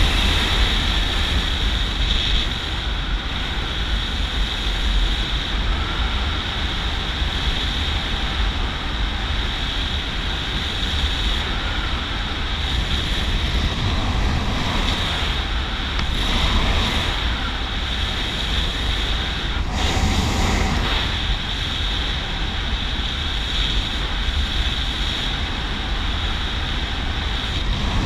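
Wind rushing over the microphone of a skydiver's head-mounted camera during descent under an open parachute: a steady, even rushing noise with a deep rumble.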